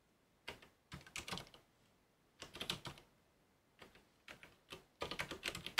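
Typing on a computer keyboard: several short runs of keystrokes with brief pauses between them.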